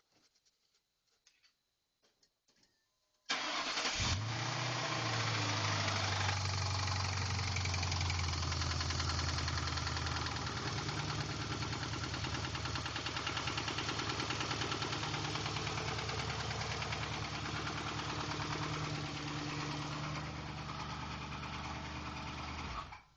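A 2003 Ford Crown Victoria Police Interceptor's 4.6-litre V8 starts about three seconds in. It idles for about nineteen seconds with a rapid, regular knocking, then shuts off near the end. The knocking is rod knock from oil starvation: pieces of broken timing chain guides had clogged the oil pickup tube.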